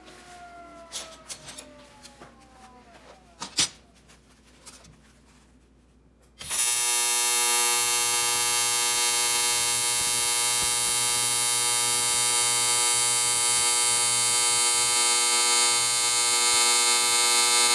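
AC TIG welding arc on aluminium: a loud, steady, harsh buzz that starts abruptly about six seconds in and holds steady. Before it, a few light clicks and taps of metal on the bench.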